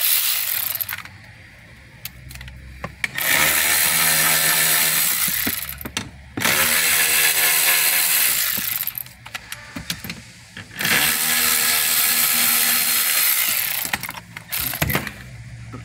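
Ratchet wrench clicking as bolts are run out of the trim panel under the glove box. There is one short burst, then three runs of about two to three seconds each, with pauses between them.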